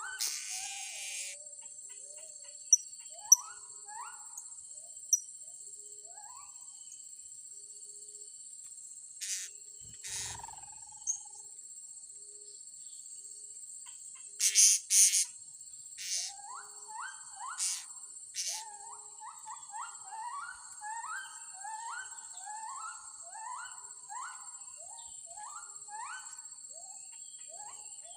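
Insects drone steadily on two high pitches while birds call over them: runs of short rising chirps, mostly in the second half, and a few sharp, shrill calls, the loudest near the middle.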